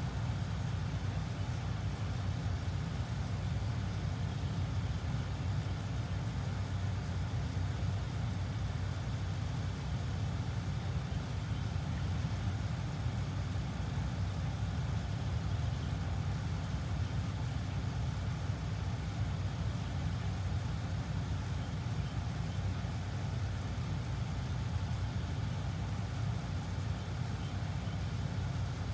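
A steady low rumble with a faint even hiss above it, unchanging throughout.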